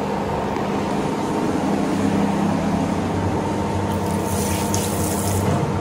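Tap water running from a washbasin faucet into a ceramic sink, starting about four seconds in and stopping shortly before the end, over a steady low hum.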